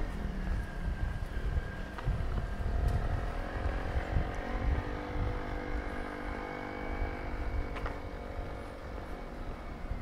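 Street ambience at night: an engine running somewhere along the street, a steady hum that drifts slowly in pitch, over a low uneven rumble with a few faint clicks.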